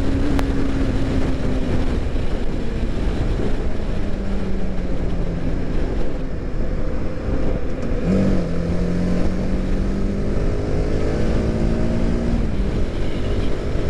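TVS Apache RR310's single-cylinder engine running at highway speed under heavy rushing wind noise, heard from the rider's position. The engine note sinks over the first few seconds, then about eight seconds in it picks up and climbs slowly as the bike pulls under throttle.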